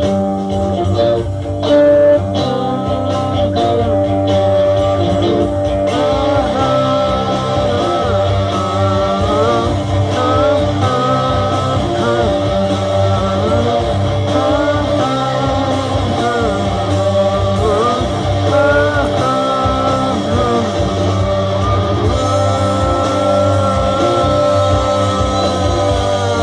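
Rock music with guitar, and a singing voice that comes in about six seconds in.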